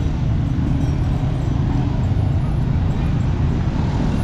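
Street traffic noise: a steady low rumble of vehicles moving on a city street.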